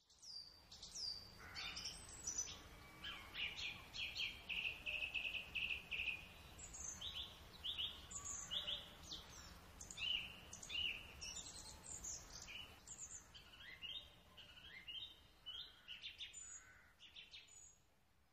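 Woodland birdsong recording: several birds singing and calling with short chirps and whistles, including a rapid trill a few seconds in. It stops shortly before the end.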